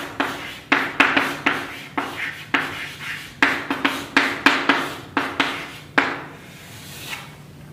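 Chalk writing on a chalkboard: a quick run of taps and scrapes as letters are written, stopping about six seconds in.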